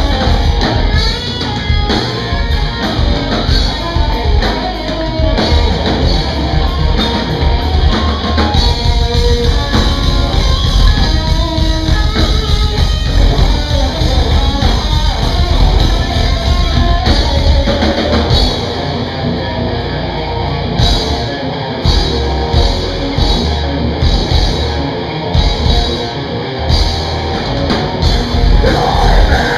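Rock band playing live: electric guitars, bass and a drum kit, loud and dense throughout.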